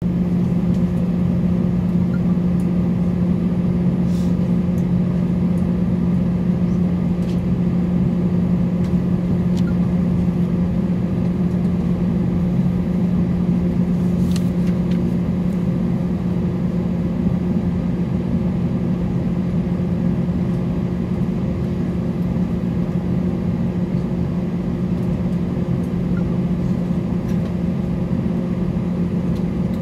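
Steady cabin drone inside an Airbus A320 on the ground: a constant low hum from the aircraft's running systems or engines, with a few faint clicks.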